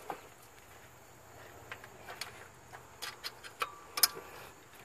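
Combination wrench working the alternator bracket bolt tight: a few irregular metal clicks and taps, the loudest about four seconds in with a brief ring.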